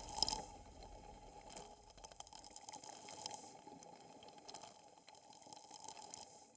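Fountain water spraying and spattering onto the camera, with sharp ticks of droplets hitting close to it. The spray comes and goes in swells.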